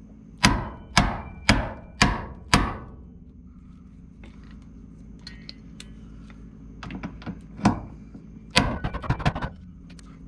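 A hand hammer strikes a manual impact driver five times, about two blows a second, to loosen the door hinge screws of a 1974 VW Super Beetle. Lighter clicks and rattles follow, with a louder cluster near the end.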